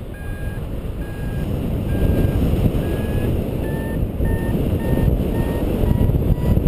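Paragliding variometer beeping in short regular beeps that speed up and rise in pitch from about three seconds in: its climb tone, the sign of the glider being carried up in lift. Wind rushes steadily over the microphone underneath.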